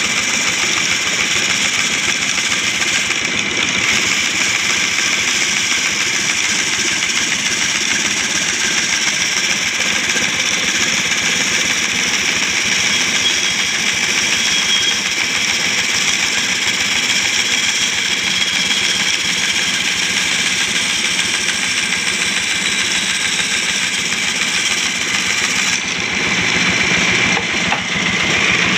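Homemade wooden-framed bandsaw running steadily, its blade cutting a curve through a thick wooden board. A little before the end the sound changes briefly as the board comes off the blade, and the saw runs on.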